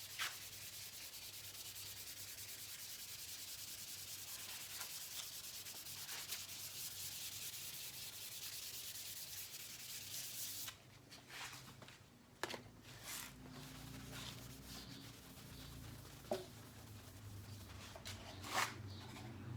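Fine-grit sandpaper being rubbed by hand over a clear-coated metal side cover in quick, steady strokes to flatten orange peel in the clear coat. The sanding stops about halfway through, and a few light knocks and handling sounds follow.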